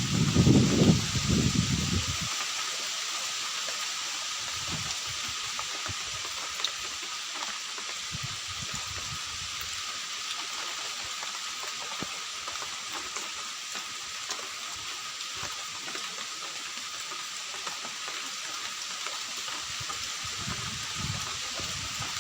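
Steady hiss of water, with a low rumble in the first two seconds.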